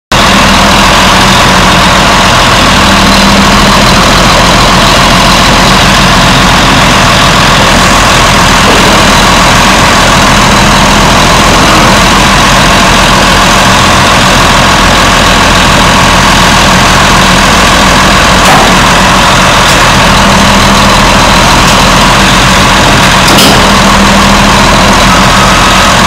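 Caterpillar D7R Series II bulldozer's diesel engine idling steadily.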